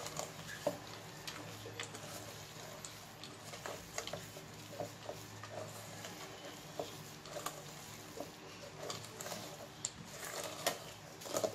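Wooden spatula stirring thick chocolate cookie dough full of chocolate chips in a stainless steel bowl: irregular soft clicks and scrapes against the bowl, over a faint steady low hum.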